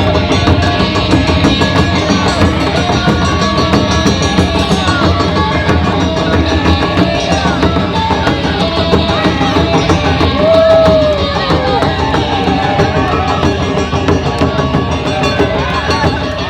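Loud live music driven by Japanese taiko drums beaten hard and in a dense rhythm, with other instruments and voices over them; a pitched line bends briefly upward then down about ten and a half seconds in.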